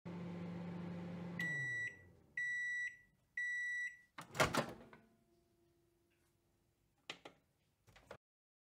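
Microwave oven running with a low hum, then three long high beeps as the timer runs out, followed by the loud clunk of the door being opened. Two brief clicks come near the end.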